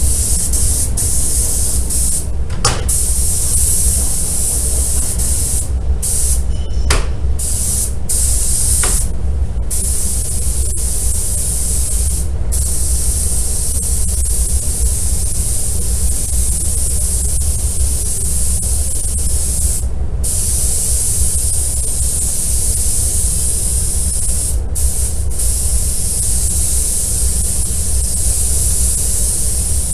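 Compressed-air spray gun hissing steadily as it sprays glass coating onto car paint, the hiss breaking off briefly several times as the trigger is released. A steady low rumble runs underneath.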